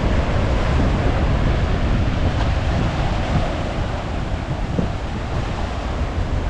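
Steady wind buffeting the microphone over the wash of sea surf along the shore.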